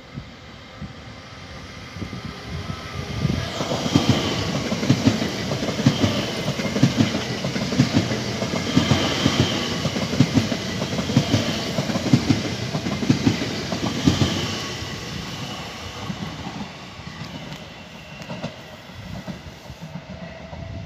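Electric multiple unit passing through the station at speed. A rumble builds as it approaches, then about ten seconds of loud clatter as its wheels pass over the rails, with short high-pitched tones now and then. The sound fades as the train moves away.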